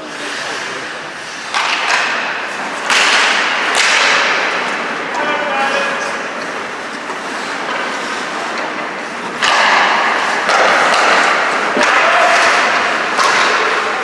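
Ice hockey play: skate blades scraping and carving across the ice in a rising and falling hiss, broken by several sharp knocks of sticks and puck.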